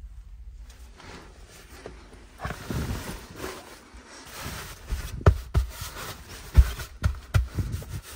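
Cotton bedsheets and a pillow rustling as a hand handles and smooths them, with several soft thumps in the last three seconds as the hand pats the pillow and mattress.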